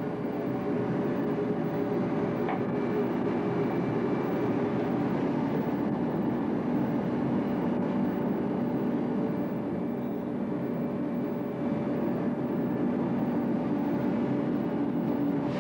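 Steady low drone of running machinery, with a few faint steady tones in it.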